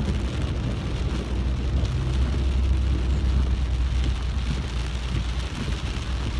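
Heavy rain drumming on a car's windscreen and roof, heard from inside the cabin over a steady low rumble from the car.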